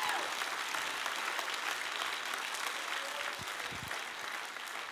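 Church congregation applauding steadily, with a few faint voices in the crowd.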